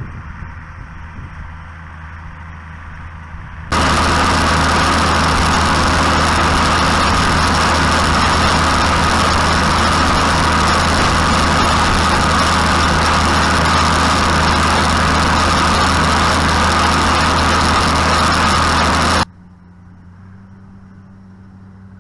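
Tractor engine running steadily during haying, in three cut-together stretches: a moderate running sound, then from about 4 seconds in a much louder, noisier steady run that cuts off abruptly near 19 seconds, then a quieter, steady engine hum.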